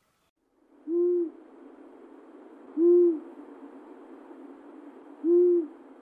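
An owl hooting: three low single hoots, evenly spaced about two seconds apart, each briefly rising and falling in pitch, over a faint steady hiss.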